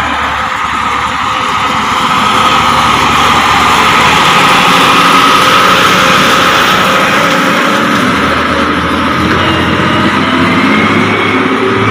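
Diesel farm tractor engine running as it tows a heavily loaded fodder trailer past. It grows louder over the first couple of seconds as it comes alongside, then stays loud.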